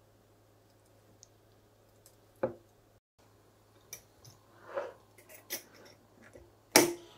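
A knock against a glass jar about two and a half seconds in, then small clinks and clicks of handling and a loud clack near the end as the glass lid of a wire-clamp swing-top jar is shut and latched.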